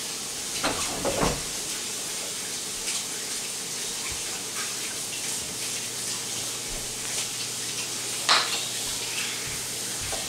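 Sliced zucchini and red bell pepper sizzling in hot oil in a skillet, a steady hiss with a few short knocks and clicks, the sharpest about eight seconds in.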